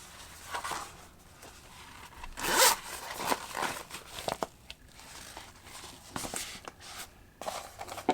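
Zipper on a small carrying bag being pulled, with one longer, louder zip stroke about two and a half seconds in among shorter rustles and clicks of handling.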